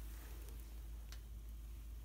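A few faint, sharp metallic clicks as the pinion yoke of a Dana 30 front differential is worked by hand, over a steady low hum.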